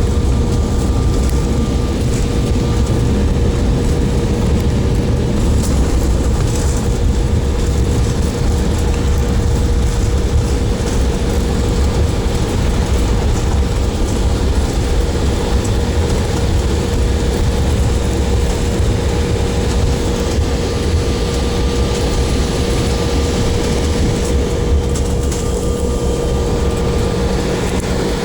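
Jet airliner cabin noise at landing: a steady low rumble with a steady mid-pitched hum running through it.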